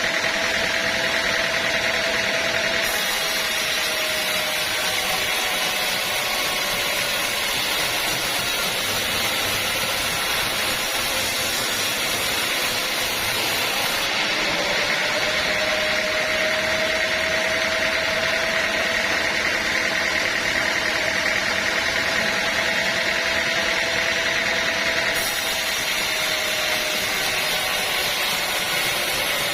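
Band sawmill running steadily, its blade working through a teak log. A higher-pitched whine comes in for about ten seconds in the middle of the stretch, then drops away.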